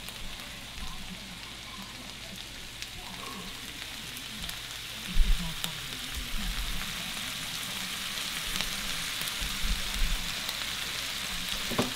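Sliced onions and bell peppers sizzling steadily as they sauté in melted butter in a skillet on high heat, with a single low thump about five seconds in.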